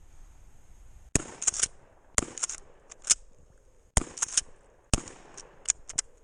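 Kel-Tec KSG 12-gauge pump-action shotgun firing low-brass shotshells in a string of about five shots, roughly a second apart, with lighter sharp clacks between them.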